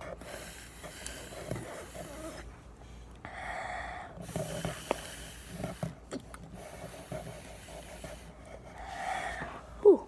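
Breath drawn hard by mouth through a homemade jar vacuum, a glass jar with a drinking straw through its lid, sucking ground red pepper off a table. It comes as about five long, airy pulls of one to two seconds each, with short pauses between them.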